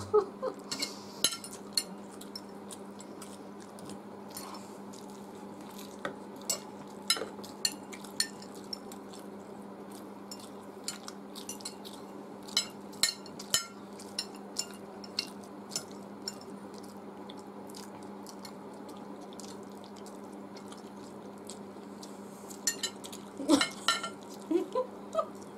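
Metal cutlery clinking and scraping on glass plates, with many sharp separate clicks throughout, over a steady low hum. Brief voices near the end.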